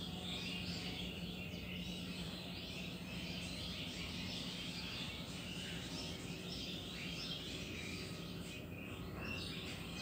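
Many birds chirping and calling at once, a dense chorus of overlapping high chirps, over a steady low hum.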